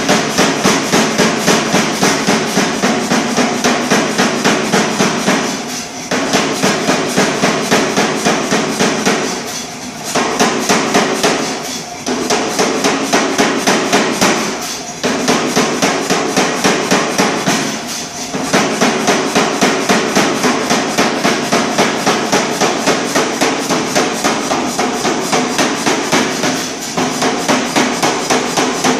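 A 100 lb Reiter air hammer pounding red-hot 1045 steel bar stock, about three blows a second, in runs broken by short pauses every few seconds. A steady hum runs underneath.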